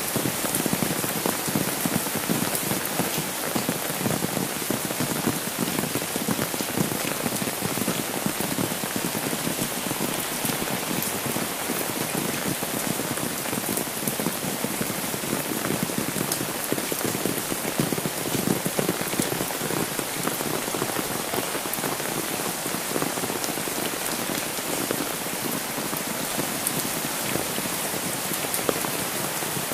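Steady rain falling, with drops hitting an umbrella held overhead and the wet road: a dense, even stream of small drop ticks.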